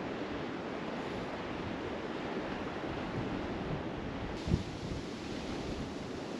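Wind blowing across the microphone, a steady rushing noise, with one brief thump about four and a half seconds in.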